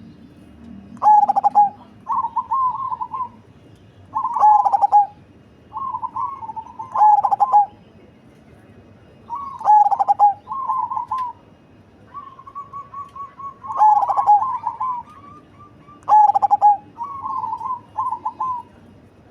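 Zebra dove (perkutut, cemani strain) cooing repeatedly: about eight phrases, each a strong opening coo followed by a quick rolling trill, in a big, deep voice.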